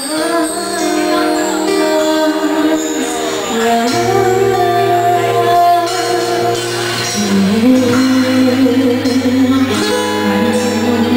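Live band playing a song: a woman singing long held notes into a microphone over strummed acoustic guitar and electric guitar, with low bass notes coming in about four seconds in.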